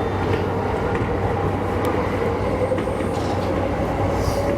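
Yamanote Line electric commuter train heard from inside the front car while running along the line: a steady rumble of wheels on rail with a constant hum and a few faint clicks.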